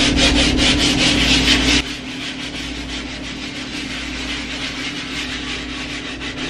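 A dish scrub brush scrubbing a soapy painted wall, its bristles rasping in fast back-and-forth strokes, about five a second. The strokes grow quieter about two seconds in.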